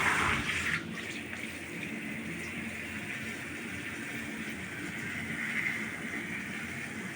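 Shower water spraying steadily with an even hiss, louder for about the first second.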